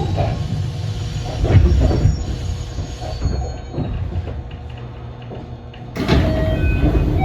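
Inside a JR West 207 series motor car with Mitsubishi transistor VVVF control: the carriage rumbles along with a few wheel knocks over rail joints, growing quieter toward the middle. About six seconds in, a sudden louder rush of running noise with sharp clicks sets in.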